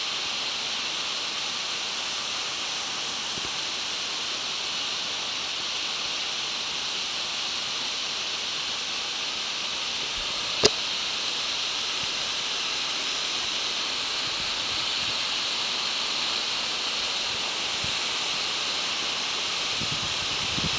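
Waterfall splashing down over rock cascades: a steady, even rush of falling water. About halfway through comes a single sharp click.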